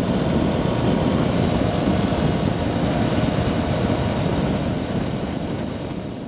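Motorcycle riding at road speed: a steady rush of wind and road noise with engine hum, fading out near the end.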